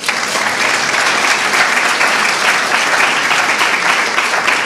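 Audience applauding: steady clapping from a seated crowd, starting at once and holding at an even level throughout.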